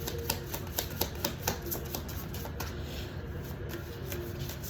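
Tarot cards being shuffled by hand: a quick run of sharp card slaps and clicks, about four a second, that stops about two and a half seconds in.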